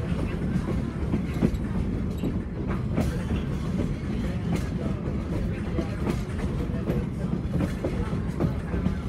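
Ride noise aboard a moving passenger train: a steady low rumble of wheels on track, with irregular clicks and knocks as the wheels pass over rail joints.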